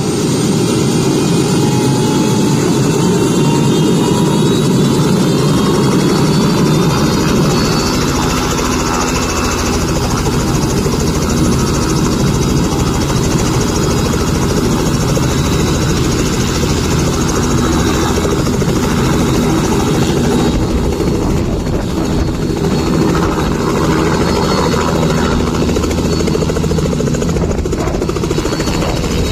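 Robinson R66 turbine helicopter running loudly with its rotor turning: a steady turbine and rotor noise, with a whine that rises in pitch over the first eight seconds or so, then a regular low beat from the blades. Near the end it lifts off the pad.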